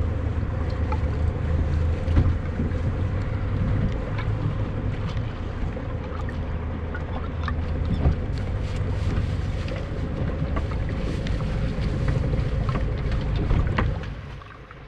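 Wind buffeting the microphone on a small open boat on choppy water, with scattered light knocks and splashes. The wind dies down suddenly near the end.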